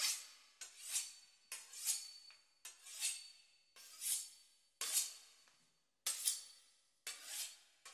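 Knife sawing through the crisp puff-pastry crust of a beef Wellington: a rasping crunch of pastry about once a second, each stroke starting sharply and fading away.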